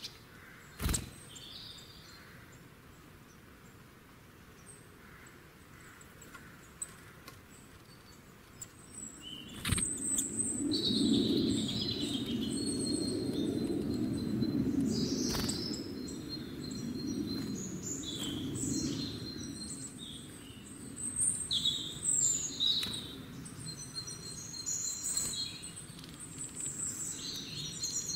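Small birds chirping and twittering in quick high calls, joined about a third of the way in by a low steady background rumble; a few sharp clicks stand out.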